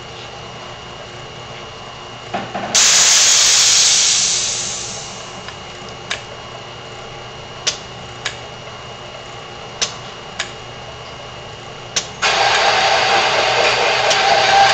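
Pneumatic AutoDrill 5000 series drilling unit with an annular cutter working on plate steel. About three seconds in, a loud burst of compressed-air hiss fades over a couple of seconds, followed by a run of sharp clicks every second or two. From about twelve seconds a loud, rough, steady noise with a whine sets in as the cutter runs.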